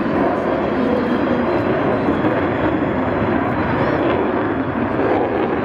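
Military jet aircraft in flight, their engine noise a steady, even rush with no breaks or sharp changes.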